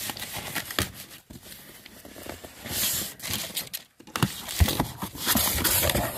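A cardboard shipping box being opened by hand: cardboard flaps scrape and rustle, plastic wrap crinkles, and a box cutter slices through packing tape, with scattered small knocks and clicks.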